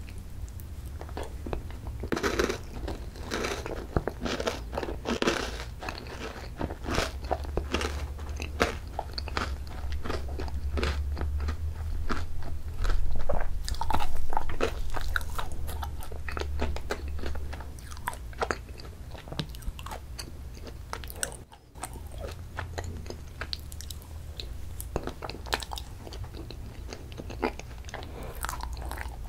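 Close-miked eating of Baskin-Robbins ice cream: wet mouth and chewing sounds with many small crackles and crunches from the bits mixed into the ice cream. There is a louder stretch about halfway through.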